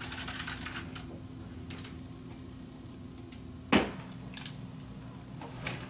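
Typing on a computer keyboard, a quick run of key clicks for about the first second, then a few scattered clicks, the loudest a single sharp click a little before four seconds in, over a steady low hum.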